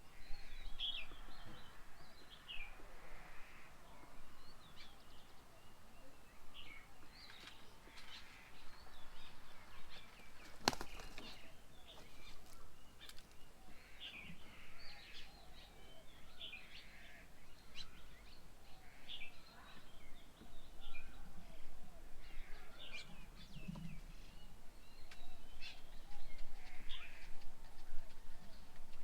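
Several birds chirping and calling, short overlapping chirps all the way through over a low outdoor hiss, with one sharp click about eleven seconds in.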